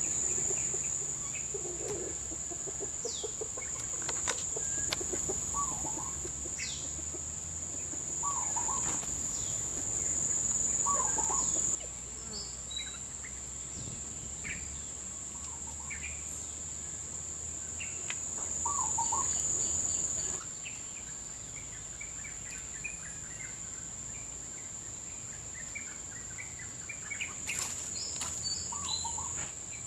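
Outdoor animal sounds: a steady high-pitched insect drone, with short animal calls every few seconds and a few brief chirps.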